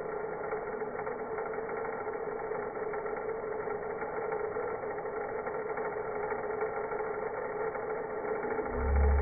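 Vacuum cleaner motor running steadily, played back slowed down so its whine becomes a low, even drone. A short low thump comes right at the end.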